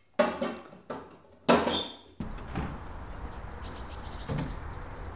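Tall wooden window shutters being unbarred and opened: three knocks and clatters of wood and the metal bar, the third loudest with a short ring. About two seconds in they give way to a steady background hush.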